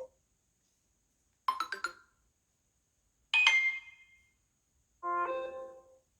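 Samsung Galaxy A71 (SM-A715) phone playing its built-in tones one at a time, with silence between them. First comes a quick run of about five plucked notes, then a bright chime that rings away, then a softer chord-like chime about a second long.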